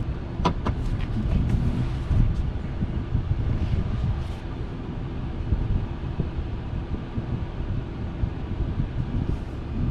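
Engine running at a steady idle, with a few sharp clicks in the first second or so.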